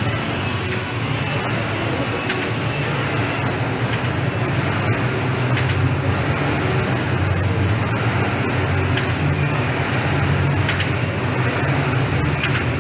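Air rowing machine's fan flywheel whirring steadily as someone rows on it.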